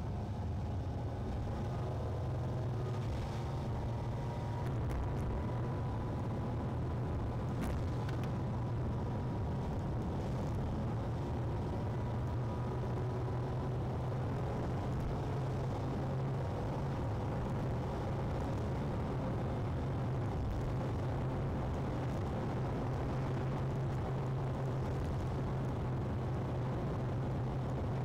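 Car driving at a steady speed, heard from inside: a constant low engine hum with road and tyre noise, and a faint whine that drifts slowly in pitch.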